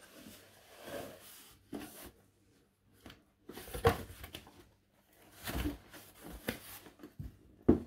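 Cardboard shipping box being handled: flaps pushed open and a boxed toy slid out against the cardboard, with uneven rustling and scraping and a few sharp knocks.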